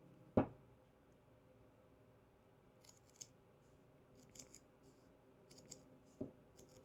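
Heavy-duty scissors cutting a strip of material in a run of short, crisp snips over the second half, with a knock about half a second in and another just after six seconds.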